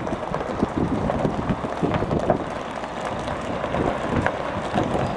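Wind buffeting the microphone, a gusty rumble that rises and falls unevenly.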